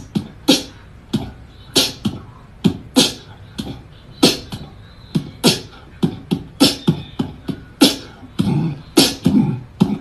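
Beatboxing: a run of mouth-made drum sounds, low kick-like thumps alternating with sharp snare- and hi-hat-like clicks, about two hits a second in an uneven beat.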